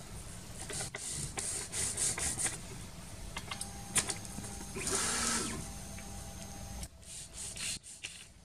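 A sheet of paper rustling and scraping as it is slid back and forth between a 3D printer's nozzle and bed: the paper-drag test for the gap during bed leveling. There is a single sharp click near the middle, and a faint steady hum runs underneath.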